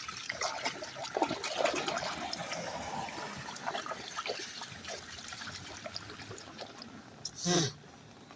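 Rainwater running and gurgling into a small drain pipe, with irregular splashes and trickles, and a brief louder splash or knock about seven seconds in.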